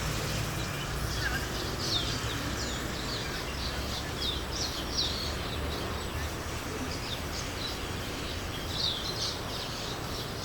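A flock of birds chirping in the treetops, many quick overlapping chirps, over a low steady rumble.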